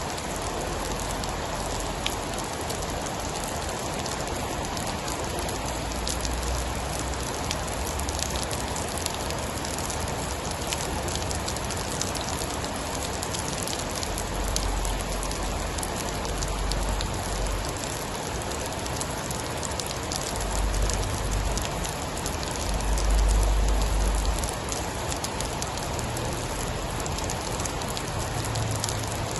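Steady heavy rain falling on a surface, a dense patter of drops. Deep low rumbles swell underneath a few times, the strongest a little past the middle.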